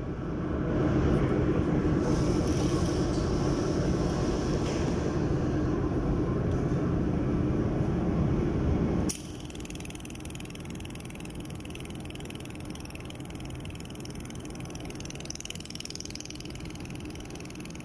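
Steady machine running noise from a laser pipe-welding setup: a loud rumble with a low hum that cuts off suddenly about nine seconds in, leaving a quieter steady hiss.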